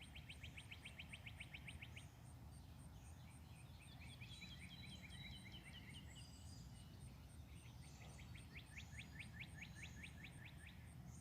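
Faint songbirds singing: a rapid trill of short notes, then a falling series of chirps about midway, then another rapid trill near the end, over a low steady background rumble.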